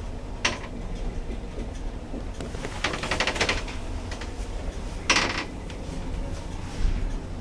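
Otis Gen2 Life lift in use: a steady low hum, with a sharp click about half a second in, a rapid rattling clatter around three seconds in, and another sharp clack about five seconds in.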